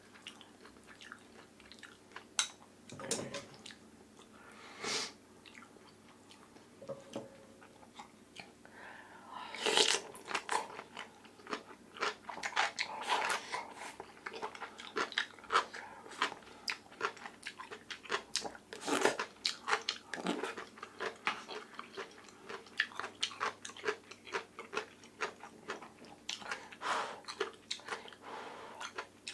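Close-miked eating of oyster rice soup: a metal spoon scooping from a small glass bowl, and chewing with soft crunching. The chewing is sparse at first and grows dense and continuous from about ten seconds in.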